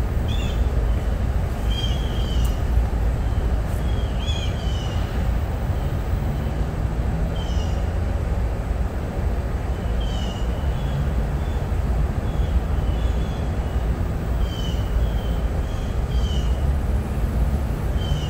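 A bird repeating short, down-slurred chirps every second or two over a steady low rumble.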